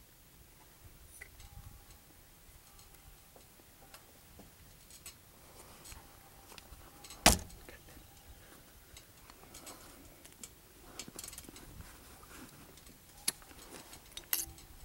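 Quiet scattered clicks and small handling noises close to the microphone, with one sharp click about seven seconds in and two smaller ones near the end.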